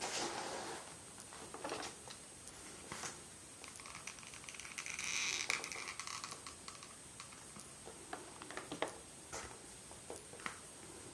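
Handling noise from hot-gluing lenses onto a fabric mask: scattered light clicks and taps, with a longer soft rustle about five seconds in.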